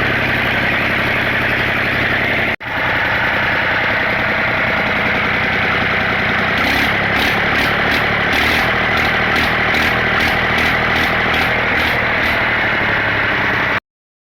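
Lister TS air-cooled diesel engine running steadily after its repair. The sound drops out for an instant about two and a half seconds in. In the second half a regular beat of about two strokes a second shows in the higher range. The sound cuts off abruptly near the end.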